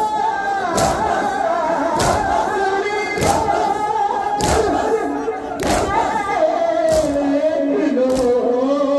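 Men chanting a noha, a Muharram lament, in unison, with the crowd's chest-beating (matam) landing together as a sharp thud about once every second and a quarter, keeping the beat of the chant.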